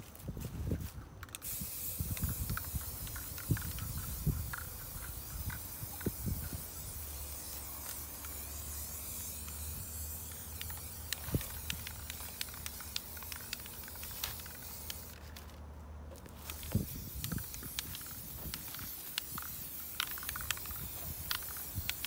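Aerosol spray paint can hissing as white paint is sprayed onto grass, in one long spray that breaks off briefly about fifteen seconds in and then resumes. Soft low thuds of footsteps under it.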